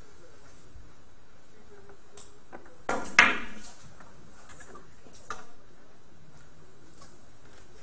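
Billiard balls clacking: a sharp click about three seconds in, followed at once by a loud, ringing ball-on-ball impact, then a softer knock about two seconds later.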